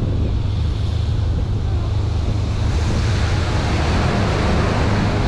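A small open sightseeing boat's engine running steadily with a low hum, under the rush of water past the hull and wind on the microphone. About halfway through, the rush turns brighter and fuller as the boat goes under a low concrete bridge.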